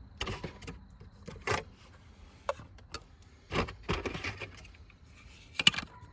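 Irregular handling noises: a string of knocks, clicks and rubbing scrapes as objects are moved and set down, with the sharpest click near the end.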